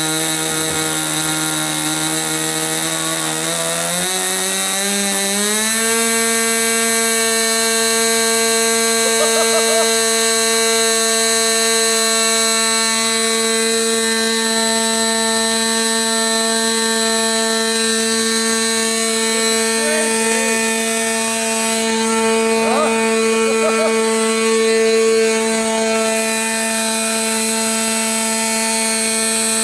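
1983 SuperTigre X25 4 cc two-stroke glow engine running on a test stand. Its speed picks up in two steps, about four and six seconds in, then it holds a steady, high-pitched, even buzz.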